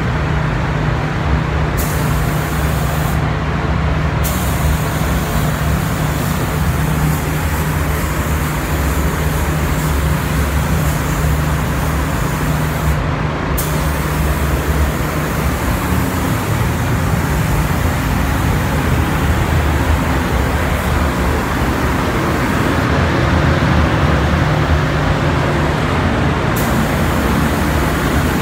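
Paint-booth ventilation running with a steady low hum, under the hiss of a compressed-air paint spray gun. The hiss drops away briefly a few times as the trigger is let off between passes.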